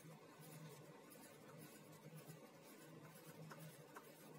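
Faint scratching of a pencil on paper, short repeated strokes as stone pitching is hatched into a drawing.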